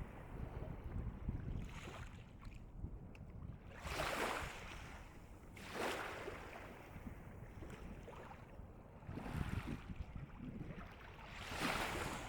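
Calm sea waves washing onto the shore, three swells of wash breaking about four seconds in, about six seconds in and near the end, over a steady low rumble.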